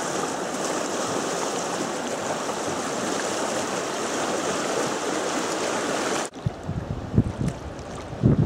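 Steady rush of a river's flowing, rippling water. About six seconds in it cuts abruptly to a quieter river sound with wind buffeting the microphone in low gusts.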